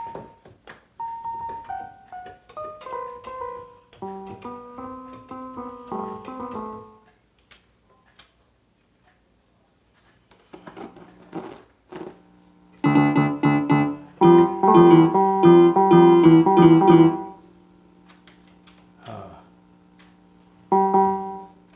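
Casio Casiotone CT-360 electronic keyboard being played: a short run of single notes, then a few chords, a pause with faint clicks, then louder held chords and one last short chord near the end.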